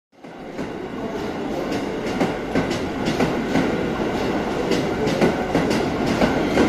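Keisei commuter train running past on the adjacent track: its wheels click irregularly over rail joints and points, about two clicks a second, over a steady rumble.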